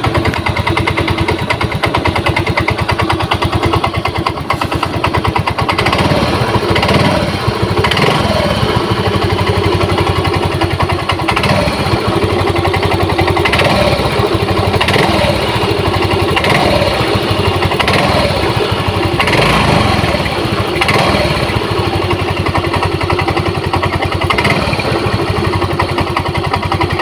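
Yamaha Mio M3 scooter engine running at idle with a rough, rattling tek-tek tick, blipped up in revs several times through the middle. The noise is harshest at idle, and the mechanic traces it to a part in the CVT that turns loose because its teeth are worn smooth.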